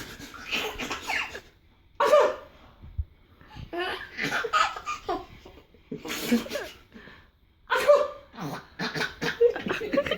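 A man sneezing again and again, and a baby breaking into bursts of giggling laughter after each sneeze.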